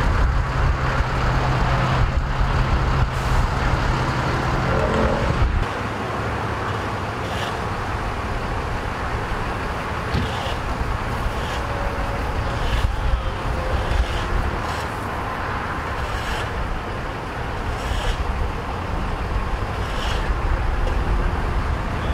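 Freeway traffic running past: a steady rumble of cars and trucks on the highway, with a steady engine drone for the first five seconds or so.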